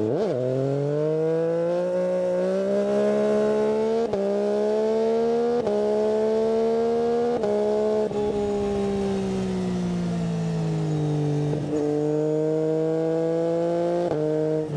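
Yamaha Tracer 9 GT's 890 cc inline three-cylinder engine under way. The note climbs steadily, with brief breaks, for about eight seconds, then falls away as the throttle eases, and climbs again near the end.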